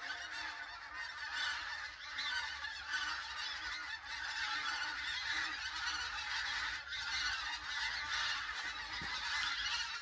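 A large migrating flock of geese flying overhead in V-formations, many birds honking at once in a continuous overlapping chorus.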